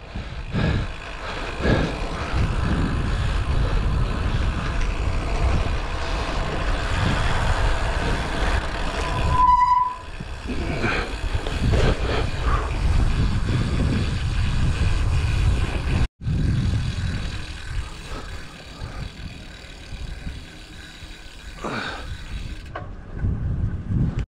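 Wind rushing over an action camera's microphone and tyre rumble from a bicycle ridden along a road, with a brief single beep about ten seconds in. The noise eases near the end as the bike slows.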